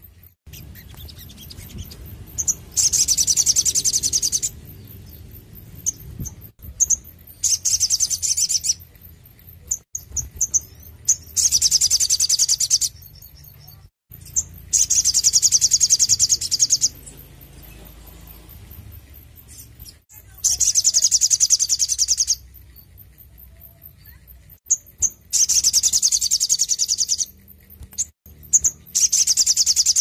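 Male olive-backed sunbird singing: a series of loud, rapid high trills, each about one and a half to two seconds long, repeated every few seconds with short chip notes in between.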